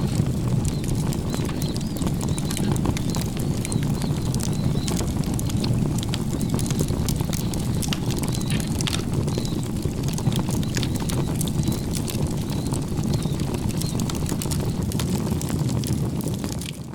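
Outdoor ambience: a steady low rumble with a dense scatter of small crackles and clicks and faint high chirps; it cuts off abruptly near the end.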